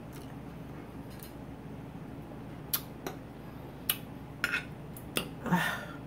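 Metal fork clinking against a glass food container, about five sharp clicks in the second half, as banana slices in hot sauce are speared and lifted. Near the end there is a short breathy mouth sound.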